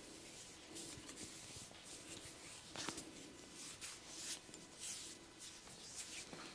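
Massage strokes rubbing over skin, heard as a quiet, repeated soft swishing, with one sharper click a little before three seconds in.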